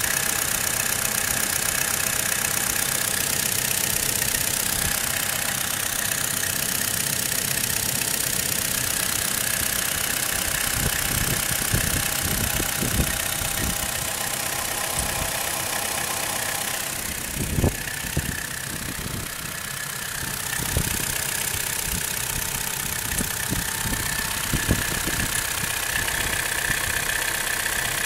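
Opel Astra GTC J 1.4 turbo petrol engine idling steadily, with short low knocks coming at uneven intervals through the running. The knock is the fault being shown; the water pump or the flywheel are the suspected causes.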